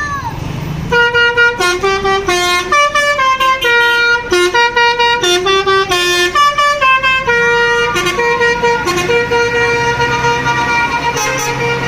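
Bus telolet basuri horn, a multi-tone electric air horn, playing a quick melody of short notes that step up and down, starting about a second in. Later it settles into rapid repeated notes on one pitch, with the bus's engine running underneath.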